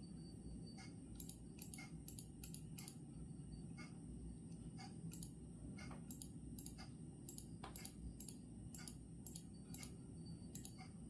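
Soft, irregular clicking, often several clicks a second at uneven spacing, over a steady low background noise and a faint high whine.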